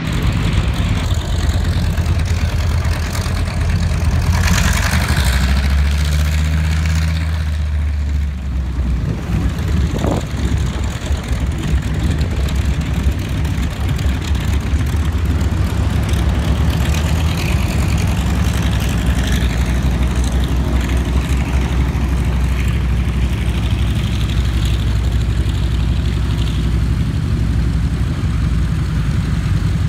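Piston engine of a vintage propeller-driven warbird running at low power while it taxis: a steady low rumble with a slight rise and fall in pitch.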